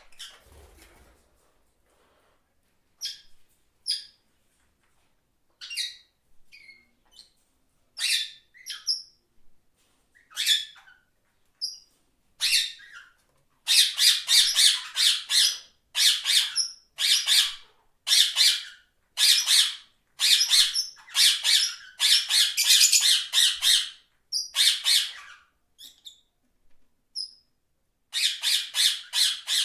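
Parrot squawking: scattered short calls at first, then from about halfway a long run of loud squawks, about one and a half a second, broken by a short pause near the end before they start again.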